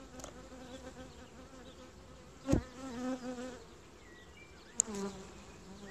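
Honeybees buzzing around an open hive, a steady wavering hum, with one sharp knock about two and a half seconds in and a short click near the end.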